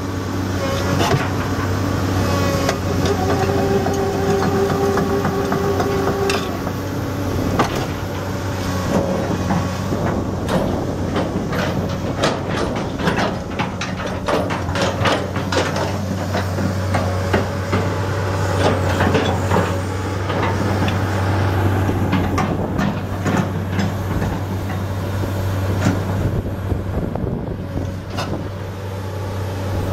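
Hyundai Robex 290LC-3 excavator's diesel engine running steadily while the machine travels and turns on its steel tracks, the track shoes clanking and rattling, most densely midway. A few seconds in, a steady whine sounds for a few seconds.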